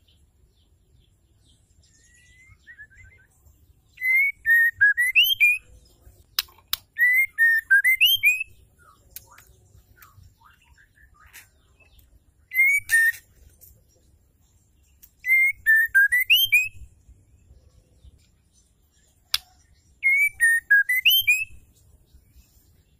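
Female white-rumped shama singing: the same short whistled phrase, dipping and then sweeping upward, given five times with pauses of a few seconds between. This loud, persistent calling song of the female is used to stir male shamas into singing. Two sharp clicks fall between the phrases.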